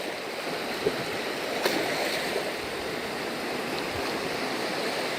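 Sea waves washing on a beach, a steady rushing wash with a couple of faint clicks.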